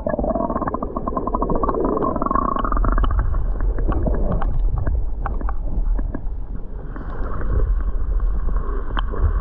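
Muffled underwater sound from a camera dipped below the river's surface: water sloshing and gurgling around the microphone, with scattered clicks and knocks.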